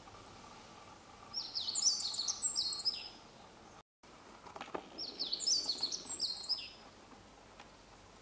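A songbird sings a short, fast phrase of high notes, each sliding downward. It sings it twice, about three seconds apart.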